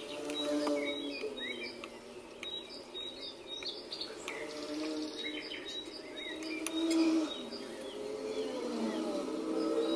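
Birds chirping, with short high calls repeating, over a louder low hum of several held tones that waver in pitch.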